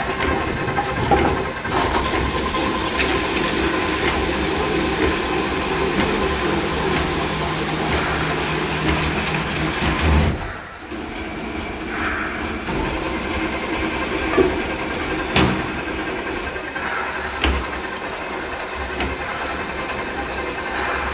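Veneer rotary peeling lathe running, its electric motors and chain drives turning while the knife peels a log into a sheet of veneer, with a few sharp knocks. The level drops suddenly about ten seconds in and then steadies again.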